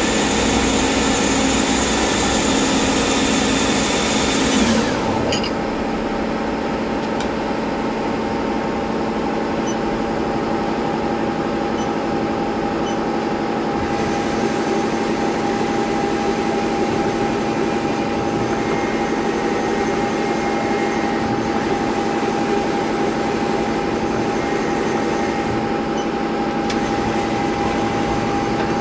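Haas TL-15 CNC lathe running under power: a steady machine hum with a constant whine. It is louder and brighter at first and drops to a lower steady level about five seconds in.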